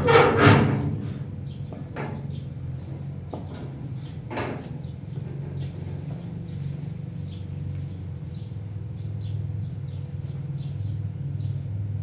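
A rusty iron door's hinges creak and squeak as it is pushed fully open, dying away within the first second. Afterwards birds chirp over a steady low hum, with one brief sharper sound about four seconds in.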